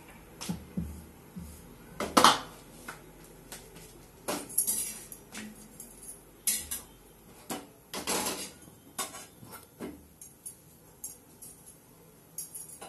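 Metal kitchen utensils and pans clinking and knocking during roti making: scattered short knocks and clatters, the loudest about two seconds in and a run of them around eight seconds.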